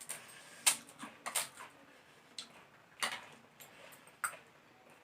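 Crisp pani puri (golgappa) shells crunching as they are bitten and chewed: a handful of short, sharp crunches a second or so apart.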